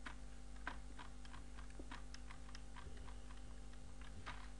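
Faint, unevenly spaced clicks of a computer mouse being clicked and scrolled, over a steady low hum.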